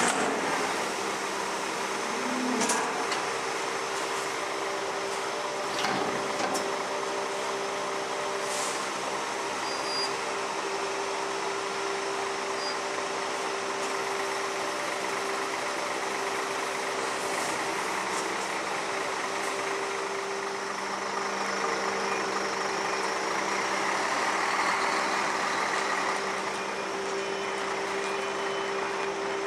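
Scania P400 front-lift garbage truck's engine running at a low-rev rumble while the lift arms lower an emptied bin, with a few short metallic clanks in the first several seconds. The engine gets louder for a few seconds past the two-thirds mark.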